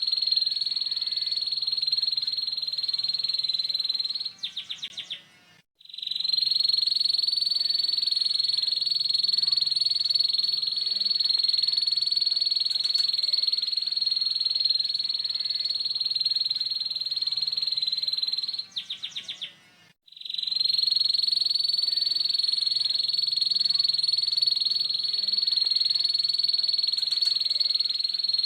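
Domestic canary singing a rough ngeriwik trill, a very fast, high, buzzing run held for many seconds at a time. Twice, about 4 s and about 19 s in, it breaks into a quick stutter of notes and a brief pause, then starts up again.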